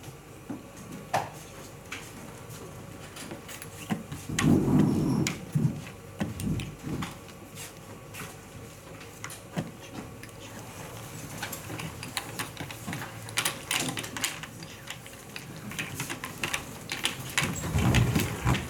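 Draughts pieces clicking against the board, a few scattered taps at first, then a quick run of clicks over the last several seconds as the pieces are gathered and set out again. A few dull low thumps stand out, the loudest about four to five seconds in.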